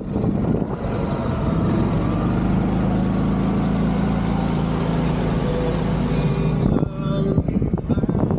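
Golf cart driving over beach sand: a steady low hum with a high motor whine that rises in pitch about two seconds in and then holds. Near the end it turns rougher and gustier.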